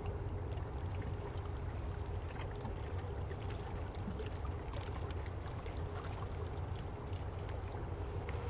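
Coast guard patrol ship's engines passing close by: a steady low rumble with a humming tone over it, and faint ticking water sounds.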